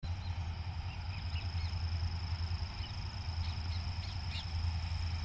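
Trackside ambience: a steady low rumble with several short bird chirps, a cluster of them about three and a half to four and a half seconds in, over a thin, steady high-pitched whine.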